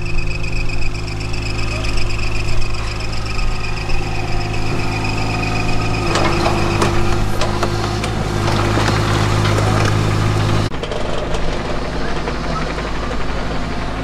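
Kubota U27-4 mini excavator's diesel engine running steadily under a high steady whine. From about six seconds in it works harder, with scraping and clatter. Near eleven seconds the sound changes abruptly to a lower, rougher engine note.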